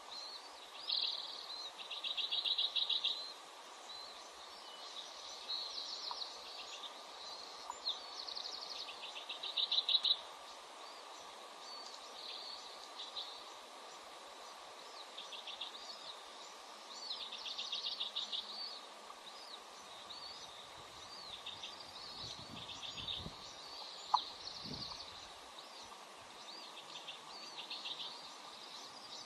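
Bald eaglets' high-pitched begging calls during a feeding: short bursts of rapid chattering notes, repeated every second or two.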